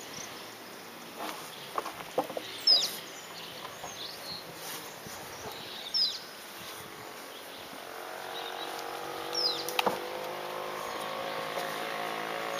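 A bird repeating a short, high call that falls in pitch, about every three seconds, four times. A few sharp knocks early on come with the tires being handled, and about two-thirds of the way through a steady hum comes in.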